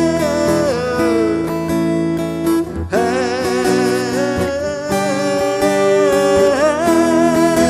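Acoustic guitar playing chords under a sustained, wavering melody line, with a short break in the melody about three seconds in.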